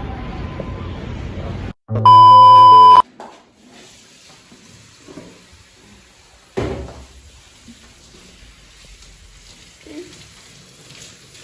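A loud electronic beep lasting about a second, one steady high tone. Before it a steady rumbling noise cuts off abruptly, and after it a few light knocks and clatters follow in a quiet room.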